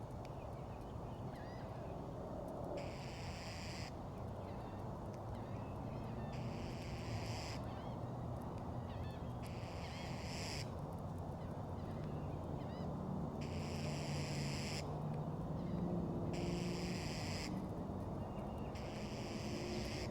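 Seagulls calling over a steady low rumble. A hissing noise of about a second repeats roughly every three seconds.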